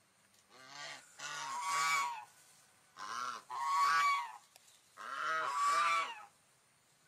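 Swan honking calls: three bouts about two seconds apart, each a quick run of two or three notes that rise and fall in pitch.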